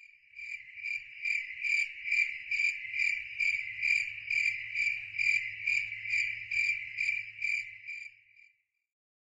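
Cricket chirping in a steady rhythm, about two chirps a second, over a faint low hum; it fades out near the end.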